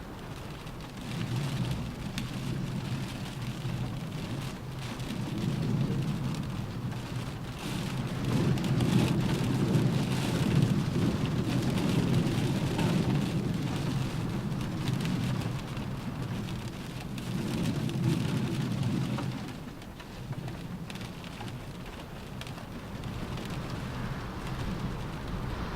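Rain falling on a car roof, a steady wash with fine drop ticks, under a low rumble that swells and fades, strongest around the middle and again about two-thirds of the way in.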